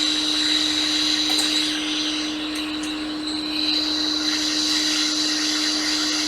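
Hot-air rework heat gun blowing steadily, a constant hiss of air over a steady hum, heating a capacitor on a laptop logic board to desolder it. It goes a little quieter about two seconds in and comes back up about a second later.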